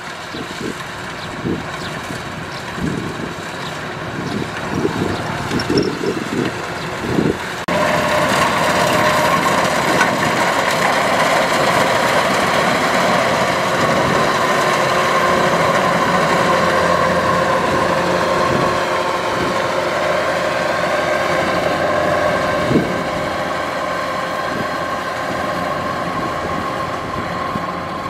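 Kubota DC-93 rice combine harvester running as it cuts, a steady engine and threshing-machinery drone with a steady whine. Wind buffets the microphone in the first several seconds; about eight seconds in the machine sound jumps suddenly louder and stays steady.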